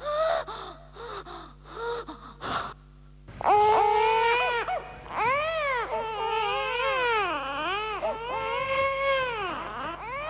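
Loud crying: a few short, gasping sobs in the first three seconds, then long high-pitched wails that rise and fall in pitch.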